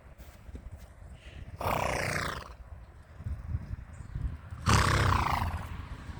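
Horse whinnying twice, each call a bit under a second long and about three seconds apart.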